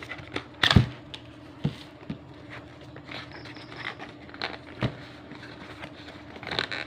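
Cardboard power bank box being handled and opened on a plastic-covered table: scattered taps and knocks with light rustling, the loudest knock just under a second in.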